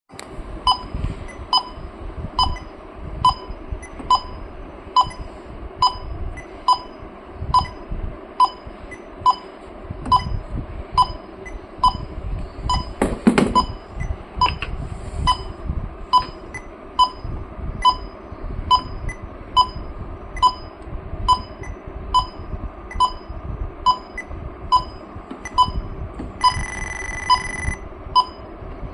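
Electronic refrigerant leak detector beeping steadily at a little over one beep a second. Near the end it switches to a continuous higher alarm tone for about two seconds, the way such a detector signals that it has picked up refrigerant at a leak. A brief rustle of handling comes about halfway through.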